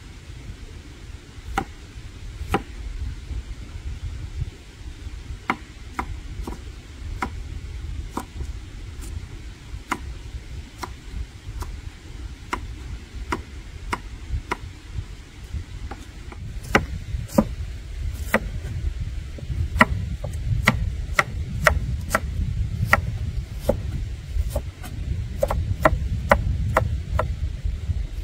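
Knife chopping on a wooden cutting board: sharp, irregular knocks about one or two a second, coming faster in the second half, over a low rumble that grows louder about halfway through.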